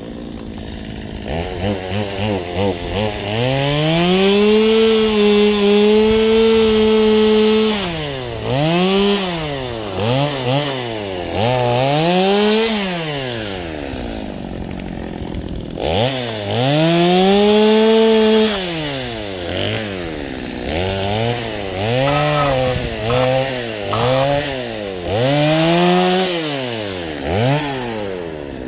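Stihl chainsaw being run through branches: its two-stroke engine climbs to full throttle and holds there for a few seconds twice, and in between revs up and drops back in quick repeated swings as the chain is worked.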